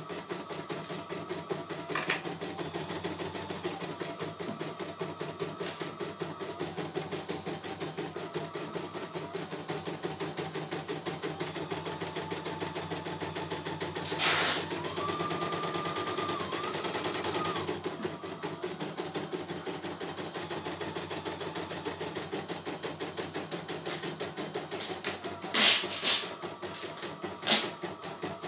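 CNY E900 computerised embroidery machine stitching a design, its needle running in a fast, even rhythm. About halfway through, a loud burst is followed by a steady higher whine for a few seconds. Three sharp knocks come near the end.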